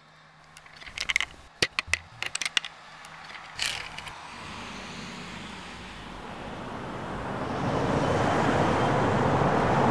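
A quick run of sharp clicks and knocks, then a rushing noise that swells steadily louder, like a sound effect building up.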